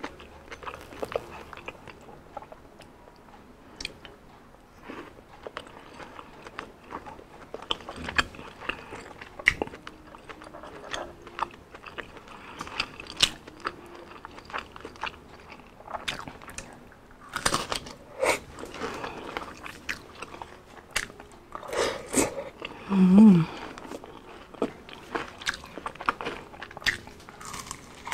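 Close-up eating sounds: crisp bites and crunchy chewing of deep-fried street food, with many sharp cracks and wet mouth clicks, growing louder and busier in the second half. About 23 seconds in comes a short hummed "mm", the loudest sound.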